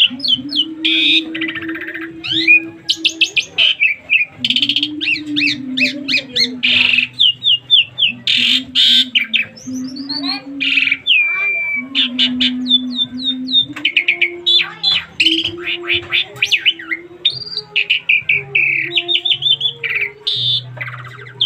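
Asian pied starling (jalak suren) singing a long, varied song of rapid whistles, chatters and squawks, packed with mimicked calls. A low droning tone runs underneath.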